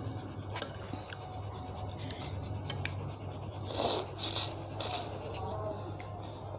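A person slurping beef noodles from a bowl: three slurps in quick succession a little past halfway. Before them come a few light clicks of chopsticks and a spoon against the bowl.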